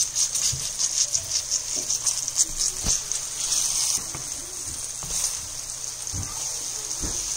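Breaded cod pieces sizzling steadily in hot oil in a frying pan, with a few knocks of a spatula against the pan as the pieces are turned.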